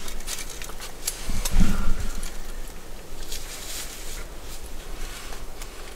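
Close rustling with scattered light clicks and crackles, and one louder low thump about a second and a half in.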